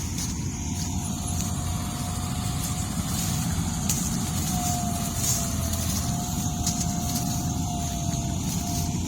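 Combine harvester running steadily in a rice field: a dense low engine rumble with a thin, faintly wavering whine above it.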